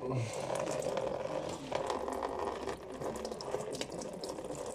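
Engine coolant draining from the opened thermostat housing and splashing into a container below, with light clicks from handling parts.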